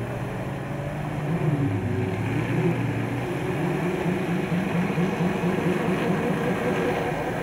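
Four-wheel-drive engine revving under load as the vehicle works through a muddy ditch, its pitch rising and falling in quick repeated surges.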